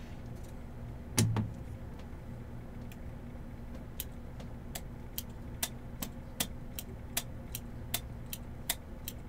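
A run of light, evenly spaced clicks, about two to three a second, starting about four seconds in, over a low steady electrical hum, with one brief louder low sound about a second in.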